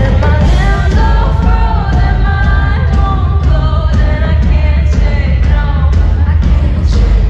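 Loud live concert music through an arena sound system: a woman singing into a microphone over a heavy bass-laden backing track, recorded from the stands.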